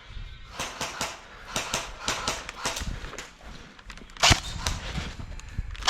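Airsoft guns firing: a quick, irregular string of sharp cracks, several a second, then a louder single crack about four seconds in and another at the end.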